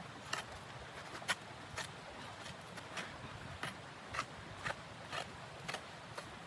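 Footsteps crunching at a steady walking pace, about two steps a second, over a steady low hiss.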